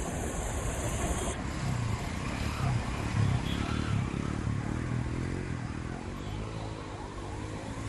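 Road traffic in a jam: vehicle engines running and revving over a steady traffic noise, with an engine hum that rises and falls a few times in the middle.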